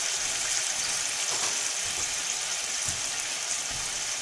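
Boneless skinless chicken breasts sizzling steadily in hot oil in a frying pan as they brown.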